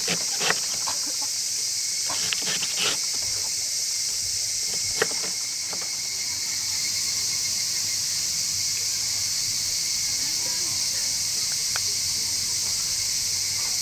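A loud, steady, high-pitched insect chorus drones throughout. In the first few seconds a kitchen knife chops cabbage on a wooden cutting board with several quick knocks, and a single click comes about five seconds in.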